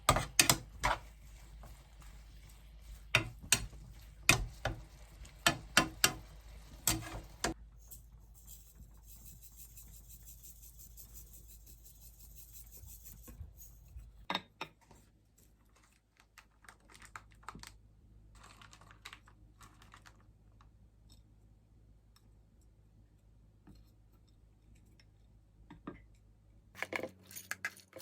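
A quick run of sharp clicks and taps from small hard objects being handled, lasting about seven seconds, then a soft hiss, then a few faint taps, with more clicks near the end.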